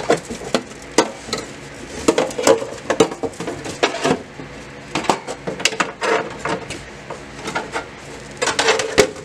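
Embossed sheet-metal heat shield being worked off its studs and pulled free: irregular metallic clinking, scraping and crinkling.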